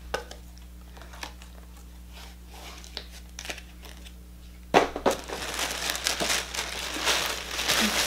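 Light taps and handling of small cosmetic packaging, then from about five seconds in, loud crinkling of packing paper being pulled out of a box.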